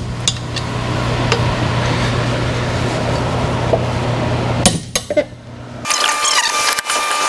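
A wrench loosening bolts on the cylinder head of a Harley-Davidson Milwaukee-Eight engine: a few metallic clicks, then a sharp click about four and a half seconds in, over a steady hum. The background changes abruptly near the end.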